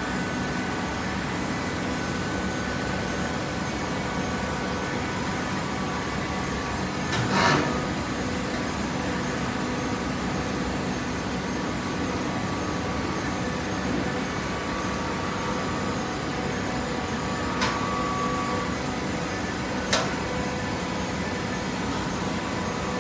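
Hydraulic baler's power unit running steadily, a constant machine hum with a few steady tones. A louder knock comes about seven seconds in, and two short sharp clicks come later.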